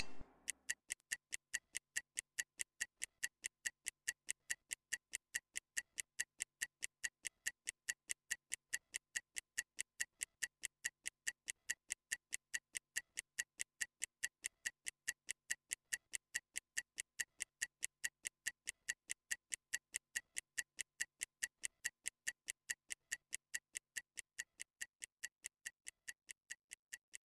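Stopwatch ticking sound effect: fast, even ticks timing a 30-second rest, growing slightly fainter near the end.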